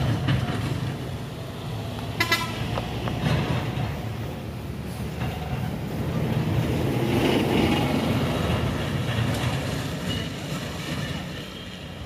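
Road traffic: a heavy truck's engine running past on the highway, with a brief vehicle horn toot about two seconds in and the engine noise swelling toward the middle.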